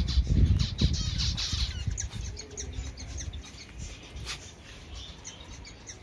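Lovebirds chirping: many short, high chirps and squeaks. In the first second or two there is a low rumble on the microphone, louder than the birds.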